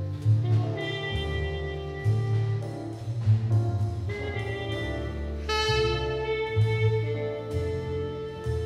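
Jazz quintet recording: trumpet and tenor saxophone hold long notes over double bass and drums. A bright, sharply attacked horn note comes in about five and a half seconds in.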